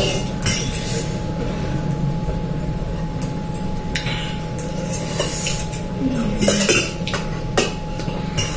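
Metal forks and spoons clinking and scraping against metal plates as noodles are eaten, in irregular sharp clinks.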